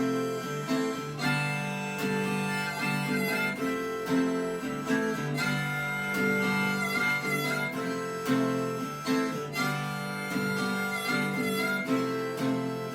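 Instrumental outro of a song: an acoustic guitar strumming steady chords with a sustained lead melody line over it.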